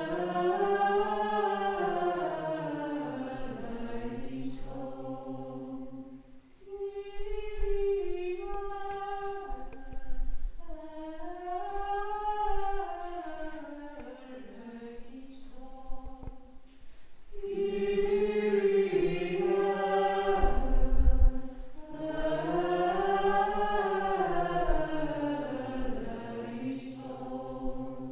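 A choir sings liturgical music for a Mass, a slow melody in several long phrases that rise and fall, with short pauses between them.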